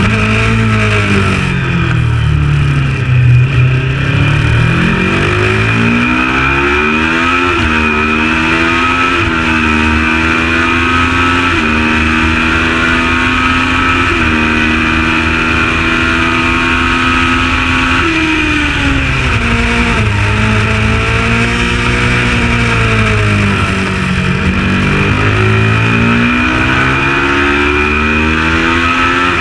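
Kawasaki ER650 Supertwin race bike's parallel-twin engine at race pace. Its pitch falls as it slows at the start, then climbs through a series of upshifts. It drops again for another slow section about two-thirds of the way through and picks up once more near the end.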